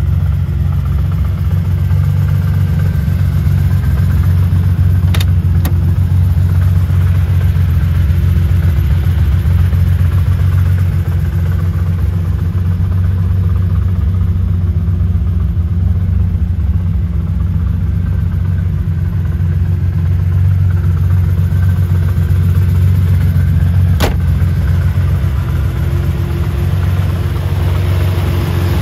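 1972 Ferrari 365 GTC/4's Colombo V12, fed by Weber carburettors, idling steadily with a deep, even hum. A few short clicks come about five seconds in and once more late on.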